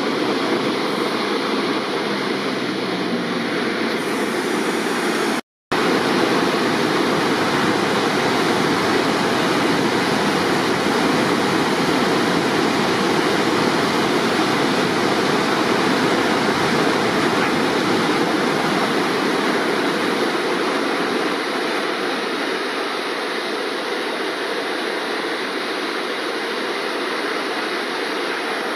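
Flooded river in spate, a steady rush of whitewater pouring over boulders and rock ledges. The sound cuts out for a moment about five seconds in.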